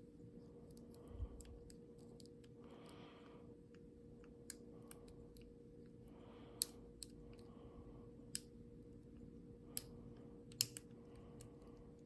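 Faint, scattered sharp clicks of a lock pick working the pin tumblers of an old American Lock padlock under light tension, pins setting and clicking off the spools one at a time. Soft breaths come between the clicks.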